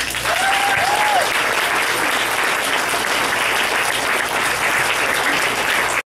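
Audience applauding steadily, with a short cheer from someone in the crowd about half a second in.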